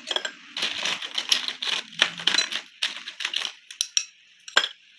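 A metal spoon scooping ice cubes out of a plastic tub and tipping them into a glass bowl of fruit, making a string of irregular clinks and clatters.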